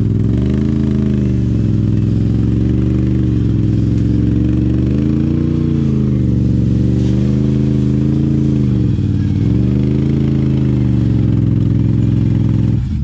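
Can-Am Renegade ATV engine revving in about six surges, each rising and falling in pitch over roughly two seconds, as the quad labours up a steep dirt climb with its rider off and pushing alongside. The sound cuts off suddenly near the end.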